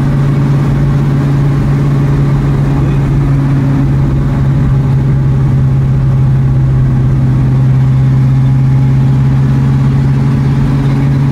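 1968 Oldsmobile 442's V8 engine and exhaust droning steadily as the car cruises at even speed, heard from inside the cabin.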